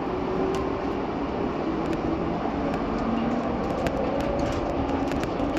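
Interior running noise of the PHX Sky Train, a rubber-tyred automated people mover, riding along its concrete guideway: a steady rumble with a faint motor whine that rises slowly in pitch.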